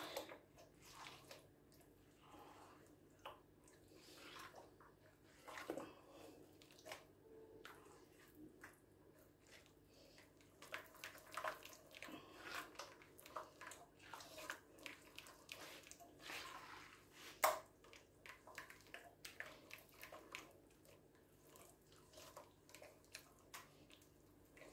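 Faint wet squelching of a hand working a soft, creamy batter in a glazed earthenware dish, with irregular soft clicks and slaps as the fingers strike the dish; the loudest click comes about two-thirds of the way through.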